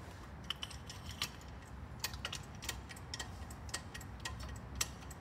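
Hand-operated hydraulic aircraft tripod jack: its pump handle is worked in its socket, giving a string of sharp, irregular clicks about two to three a second.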